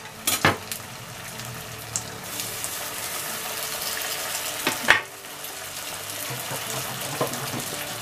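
Spring rolls deep-frying in oil in a wok, sizzling steadily. Chopsticks turning the rolls click against the pan about half a second in and, louder, about five seconds in.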